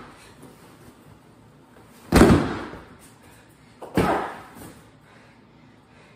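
Two loud thuds about two seconds apart, each trailing off in a short echo: a boy striking and kicking a stuffed wrestling dummy lying on a hard floor.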